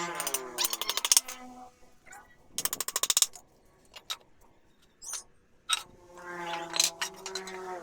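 Cordless drill or driver running: a motor whine that winds down at the start and rises again near the end, with two quick runs of rapid clicking, about a second and three seconds in.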